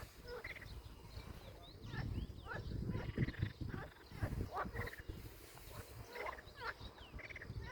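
Many short animal calls overlapping: chirps, quick sweeping whistles and pulsed trills, over a low rumble that is loudest in the middle.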